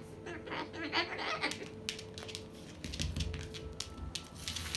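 Umbrella cockatoo's claws clicking and tapping on a hard floor as it runs, a quick, uneven patter of small clicks.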